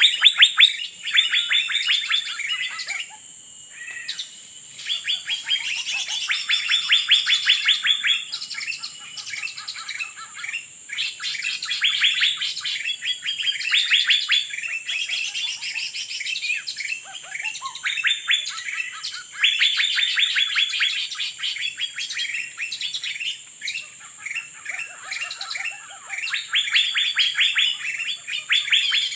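Birds chirping in rapid, chattering bouts of one to two seconds each, repeated with short gaps, the kind of calling heard while luring birds into a trap.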